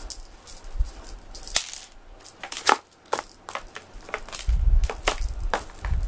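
Cat teaser wand being waved and shaken, making an irregular run of small rattling, jingling clicks; from about four and a half seconds in, a low rumbling handling noise joins them.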